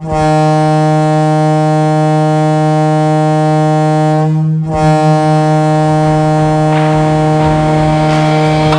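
Arena goal horn sounding one long, loud, steady blast with a brief stutter about four and a half seconds in.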